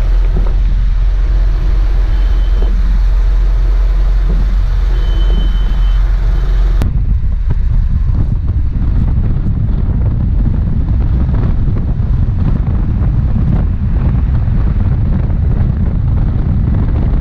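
Truck engine and road noise heard from inside the cab while driving, a steady low hum; a faint high tone sounds twice. About seven seconds in it changes abruptly to the rumble and tyre noise of heavy trucks passing close alongside on a wet highway.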